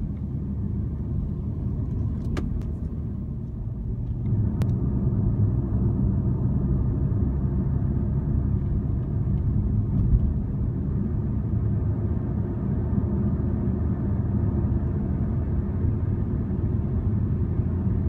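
Car engine and tyre rumble, heard from inside the cabin while driving steadily. It grows a little louder about four seconds in. Two brief faint clicks come in the first five seconds.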